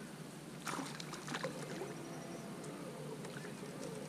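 Short scraping and knocking handling sounds in a small boat, about a second in and again briefly soon after, as a hooked crappie is brought up to the surface on a long crappie pole.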